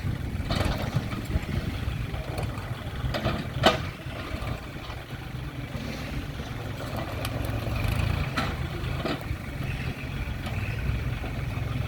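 Heavy diesel earthmoving machinery running steadily with a low rumble, with a few sharp knocks or clanks breaking in.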